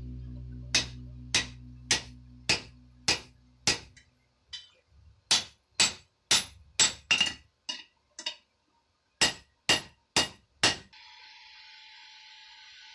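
Blacksmith's hammer striking iron on an anvil: runs of sharp, ringing blows at about two a second, with short pauses between the runs. Near the end a steady hiss starts.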